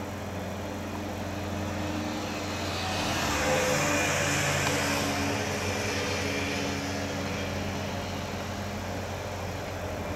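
Steady low engine drone. A vehicle passes close by, its noise swelling and fading about three to seven seconds in.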